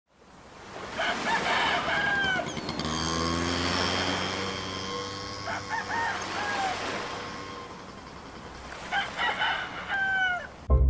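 Rooster crowing three times, each crow ending on a falling note, over a low steady hum in the middle stretch.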